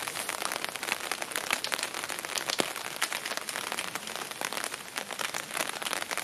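Steady patter of rain: a dense, even crackle of many small drop taps.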